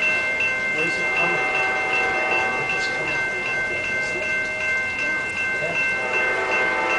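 Railroad grade-crossing warning bell ringing steadily, a high ding repeating about three times a second, warning of an approaching train.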